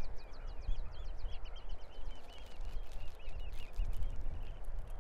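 A flock of birds calling in quick, short repeated notes, over the low rumble of wind on the microphone.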